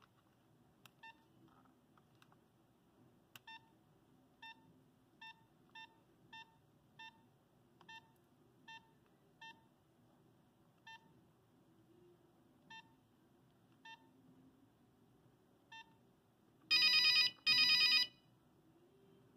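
Nokia 5110 mobile phone: about fourteen short, identical beeps at uneven intervals, typical of keypad key tones as its buttons are pressed. Near the end a ringtone starts with two loud bursts of rapid, high electronic tones.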